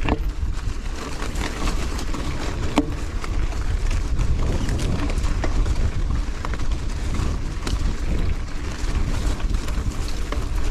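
Gusty wind buffeting the GoPro's covered microphone while a mountain bike rolls over a rough trail, with scattered sharp clicks and rattles from the bike and the trail.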